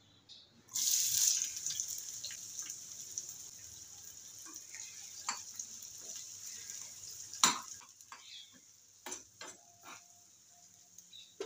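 Chopped onions hitting hot oil in a nonstick frying pan: a sudden loud sizzle about a second in that eases to a steady frying sizzle, with a spatula stirring and knocking against the pan. The sizzle drops away about eight seconds in, leaving a few sharp spatula taps.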